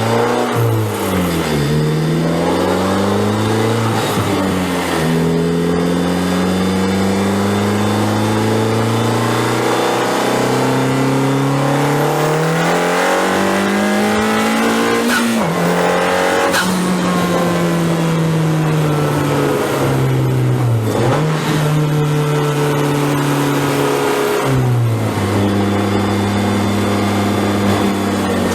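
Honda Civic Type R FK8's turbocharged 2.0-litre K20 four-cylinder under hard acceleration: revs climb steadily and then drop sharply, several times over, as at gear changes, with one slower fall as the car slows before it pulls again.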